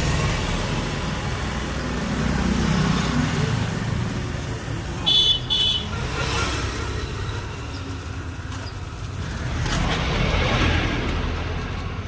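Road traffic passing, with vehicles swelling by twice. About five seconds in, a vehicle horn gives two short beeps.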